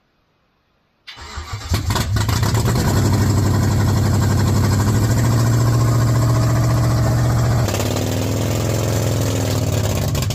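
V8 engine in a Fiat Multipla conversion starting about a second in, catching and running rough and uneven, with a sound likened to a lawnmower; it is running on its first start with no engine map programmed, which is why it runs badly. Near the end its note changes and drops a little.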